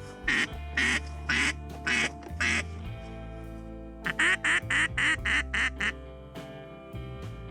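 A run of mallard-style quacks, five about half a second apart, then after a pause a faster run of eight, over background music.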